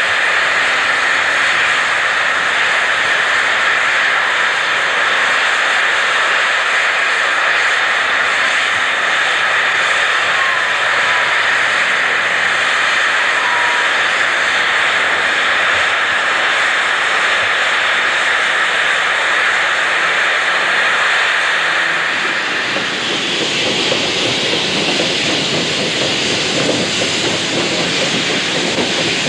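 Small steam saddle-tank locomotive standing with its safety valves blowing off: a loud, steady hiss of escaping steam, the sign that the boiler is at full pressure. About 22 seconds in the hiss gives way to the lower running sound of a tank locomotive moving over the rails.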